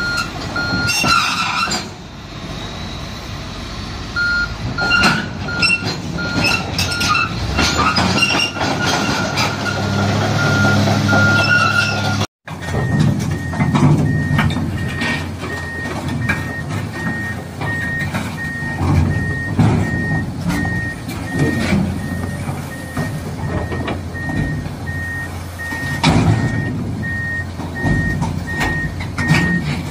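Komatsu crawler excavators driving onto a lowboy trailer: diesel engine running, steel tracks clanking and knocking, with the travel alarm beeping over it. The beep changes to a higher pitch about 12 seconds in, where the footage cuts to a second machine.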